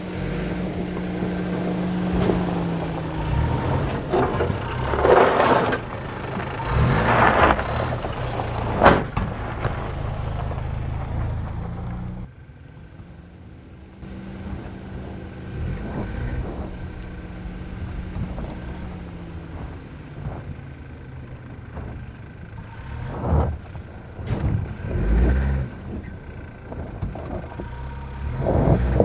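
2024 Toyota Tacoma TRD Off-Road pickup's engine running at low speed, its pitch rising and falling as it revs over a dirt trail, with several bursts of tyres crunching over loose dirt and stones.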